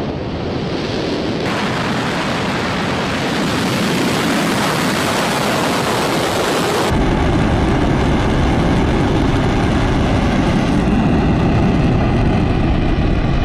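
Soyuz-2 rocket's first-stage engines at liftoff: a loud, continuous rush of noise that gets deeper and heavier about seven seconds in.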